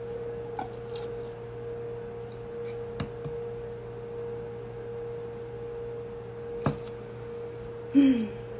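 Ice cubes and a metal straw clinking lightly against a glass of iced coffee, a few sharp clicks spread out, over a steady electrical hum. About eight seconds in comes a brief, louder sound that falls in pitch.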